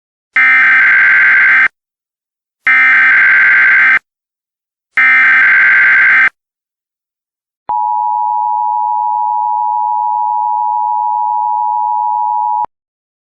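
Emergency Alert System signal: three identical SAME header data bursts, each just over a second long, followed by about five seconds of the steady two-tone attention signal, the tone that announces an emergency bulletin is about to be read.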